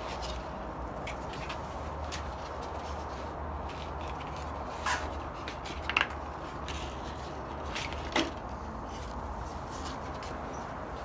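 Abrasive belt being swapped on a belt grinder: three short sharp clicks and knocks of the belt and grinder parts being handled, the loudest about six seconds in, over a steady low hum.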